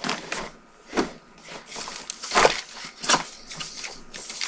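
Handling noise close to the microphone: a string of rustles, scrapes and sharp knocks as someone moves and handles things in front of it, the loudest about two and a half and three seconds in.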